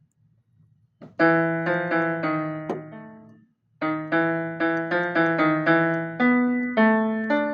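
Piano notes played one at a time in a simple tune. The notes start about a second in, break briefly around the middle, then run on at roughly two to three notes a second, each struck and fading.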